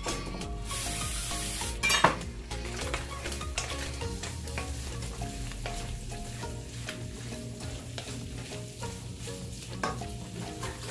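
Chopped lobster meat sizzling as it fries in a hot skillet, stirred and scraped around with a wooden spatula. A louder hiss rises about a second in, and there is a sharp knock about two seconds in.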